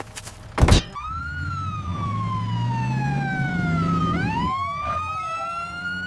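A loud thump, then an ambulance siren wailing in one slow falling sweep that turns and rises again, over the low rumble of a vehicle engine.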